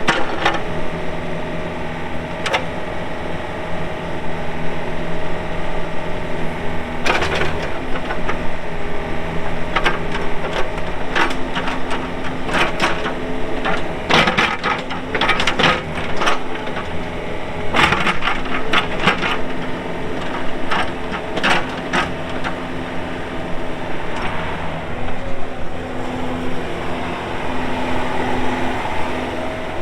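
Yanmar YB401W wheeled excavator's diesel engine running steadily while the machine is worked, with many sharp knocks and clanks, mostly in the middle stretch.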